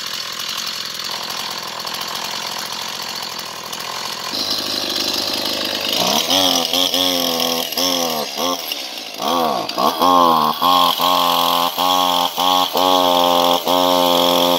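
A small motor running steadily; from about six seconds in its pitch dips and climbs again over and over, with short breaks.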